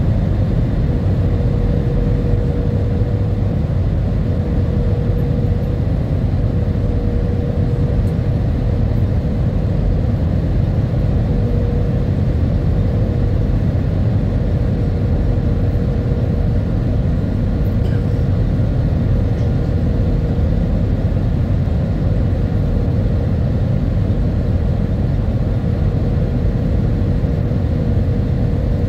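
Jet airliner cabin noise in flight on approach: a steady, deep rumble of engines and airflow, with a thin steady hum riding above it.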